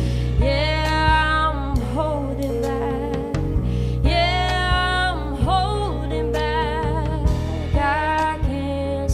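Live band playing the song: steady bass, regular drum hits and a wordless sung melody line with long held, gliding notes.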